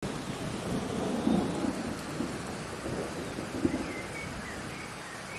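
Steady rain with a low rumble of thunder over the first few seconds that eases off toward the end; the sound starts suddenly. A few faint high chirps come near the end.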